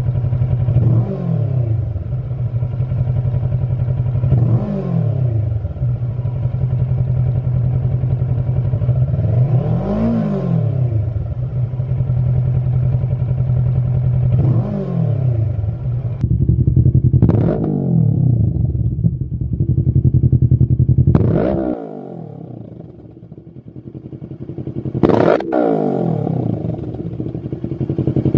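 Kawasaki Versys 650's parallel-twin engine idling steadily and blipped to a quick rev four times through the stock exhaust. Later the same bike idles and revs through an aftermarket Lextek OP5 slip-on silencer, with sharper blips.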